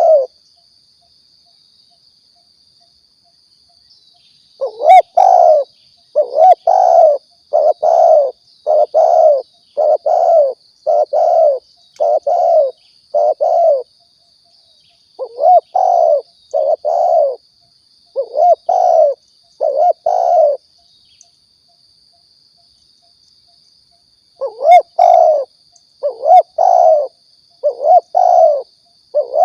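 Spotted dove (tekukur) cooing: a series of repeated low coo notes in three bouts, separated by pauses of a couple of seconds. This is a recorded lure call used to draw doves in for trapping or shooting.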